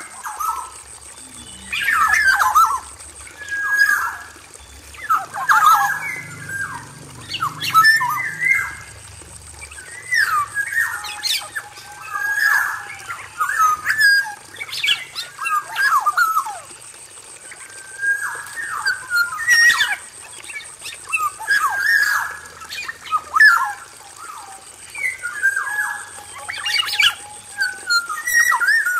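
Male black-naped oriole calling over and over from an aviary, giving short whistled and harsh phrases every one to two seconds.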